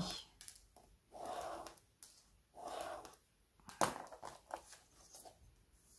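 Handling sounds on a cutting mat: two soft rustling noises, then a sharp click a little under four seconds in and a few lighter clicks as a pen is picked up beside a steel ruler held on a book page.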